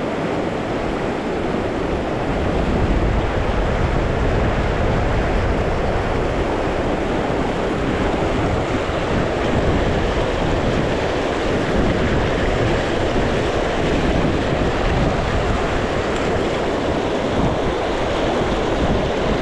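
Steady rush of flowing river water, with wind buffeting the microphone.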